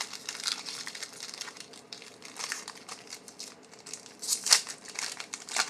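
Foil trading-card pack wrapper crinkling and tearing as it is opened, a dense irregular crackle with its loudest rip about four and a half seconds in.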